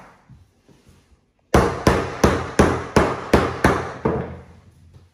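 Rubber mallet tapping NuCORE click-lock vinyl planks to seat the joints: about eight even strikes, roughly three a second, starting about a second and a half in.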